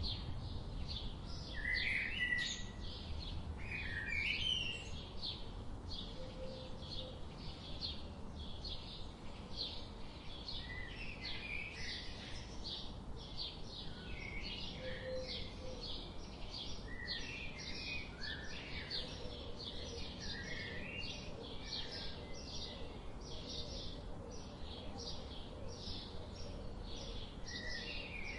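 Birds chirping: a steady run of short, high chirps about three a second, with lower, quicker chirping calls from other birds scattered through.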